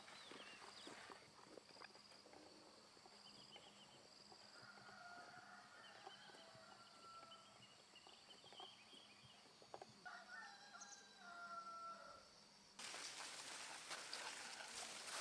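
Faint rural ambience with distant roosters crowing and a thin, steady high tone. Near the end a louder rustling noise starts abruptly.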